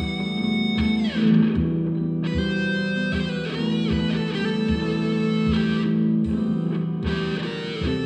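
Guitar music with a steady low beat; the notes slide downward in pitch about a second in.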